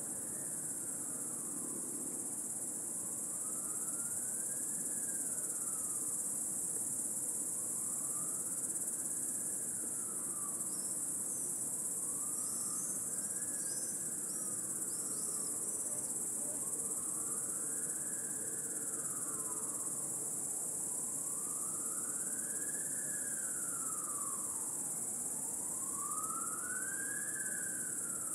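Cicadas singing in a dense, steady, high-pitched chorus. Beneath it, a fainter tone slowly rises and falls about every four seconds, and a few brief high chirps come near the middle.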